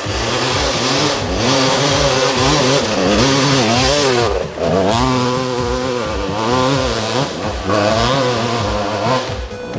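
Dirt bike engine revving, its pitch rising and falling several times as it rides past, with a brief drop about four and a half seconds in.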